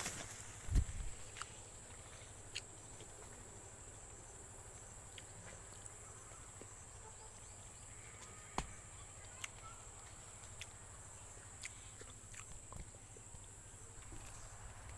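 Faint outdoor ambience under a tree: a steady high-pitched insect drone over a low hum, with scattered clicks and a thump about a second in from the phone being handled among the branches.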